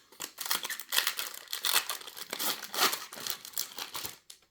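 Foil wrapper of a Magic: The Gathering set booster pack crinkling and rustling in the hands, a dense run of quick crackles that stops shortly before the end.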